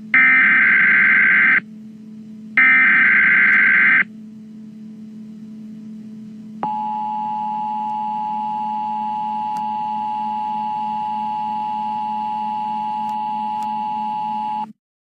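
Emergency Alert System signal: two of the three warbling SAME data header bursts, each about a second and a half long, then the steady two-tone attention signal held for about eight seconds before it cuts off abruptly, over a low steady hum. It announces an emergency broadcast, here a National Weather Service tornado warning.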